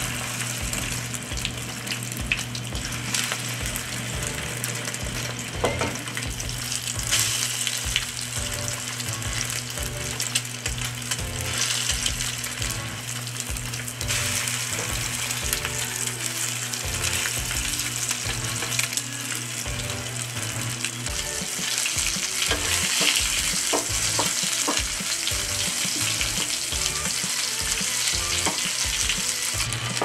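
Egg-and-flour battered Asian sheephead wrasse fillets frying in hot cooking oil in a nonstick pan, with a steady sizzle and crackle.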